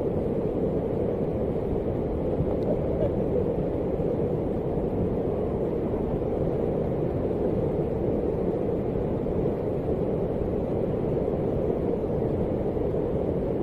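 Muddy flash-flood torrent rushing, a steady low churning roar of fast water with no let-up.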